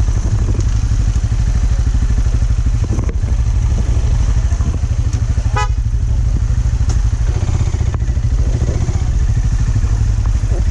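Benelli Imperiale 400's single-cylinder engine idling steadily at low speed in stop-and-go traffic. There is a brief high chirping sound about halfway through.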